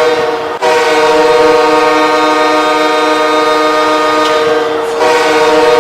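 Ice hockey goal horn (the Los Angeles Kings' horn) sounding a chord of several steady tones in long blasts. A short blast breaks off about half a second in, a long held blast follows, and a new blast starts about five seconds in.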